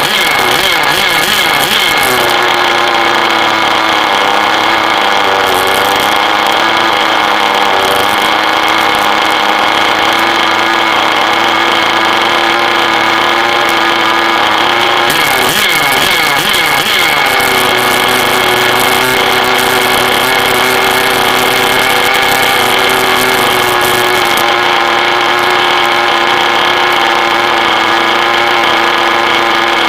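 An engine running at a steady speed. Its pitch sweeps briefly near the start and again around the middle, then it settles back to a steady run.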